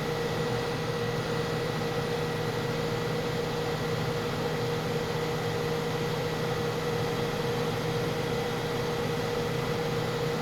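1981 Kenmore 48-pint dehumidifier running steadily: its fan blowing air, over the steady hum of its Tecumseh AE compressor.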